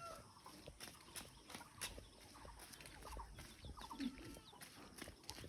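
Chickens clucking faintly a few times, with scattered small clicks; the tail of a rooster's crow ends right at the start.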